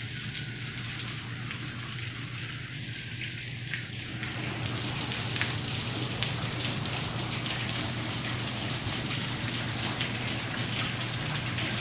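Floodwater from an overflowing sink upstairs pouring and dripping down through the building: a steady splashing patter with scattered drips, louder from about five seconds in.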